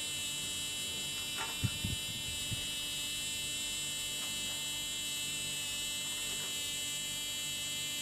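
Steady electrical hum with a thin high-pitched whine, and a few faint soft knocks about two seconds in.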